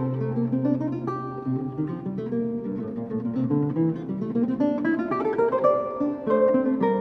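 Solo lute playing Italian Renaissance music: plucked notes in several voices at once, a low bass note held over the first second and a half, and quick runs of notes.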